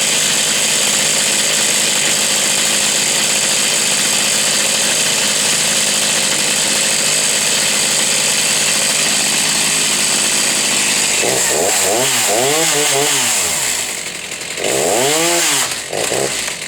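Gas chainsaw running steadily at high speed, then revved up and down several times over the last five seconds or so.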